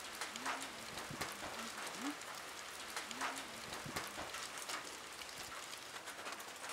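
Rain falling and dripping off a roof edge: a soft, steady hiss with irregular taps of single drops.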